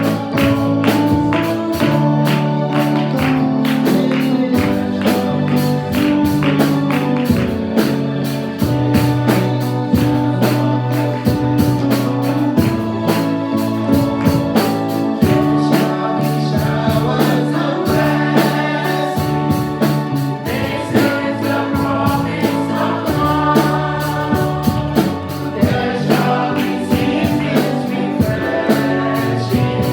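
Gospel praise-and-worship music: a band with a steady beat and bass, with voices singing along.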